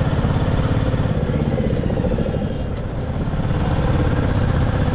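Motorcycle engine running at low road speed with a fast, steady pulsing beat. It eases off briefly in the middle, then picks up again.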